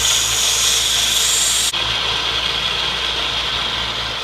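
Small electric power tool running steadily, sanding down a small strip of plastic. A harsher, hissier grind in the first second and a half, while the piece is pressed against it, cuts off sharply; the motor keeps running after that.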